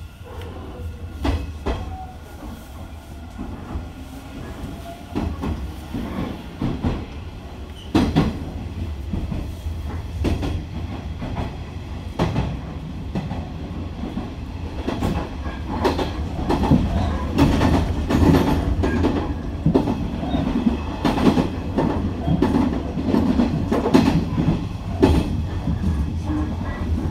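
Inside a Hanshin 1000 series train pulling out and gathering speed. The low running rumble grows louder, and the wheels clack over rail joints more and more often as the train speeds up.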